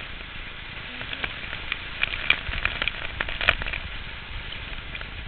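Hail and rain pelting down: a dense crackle of small hits over a steady rush, with a couple of sharper, louder hits about two and three and a half seconds in.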